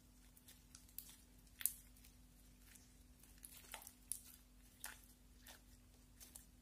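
Glossy slime being kneaded and stretched by hand, giving faint, irregular wet clicks and pops. The sharpest pop comes about one and a half seconds in.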